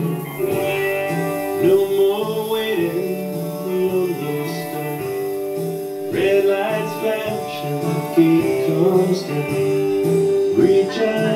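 Recorded Americana band music playing steadily, led by plucked guitars with other string instruments over a regular beat.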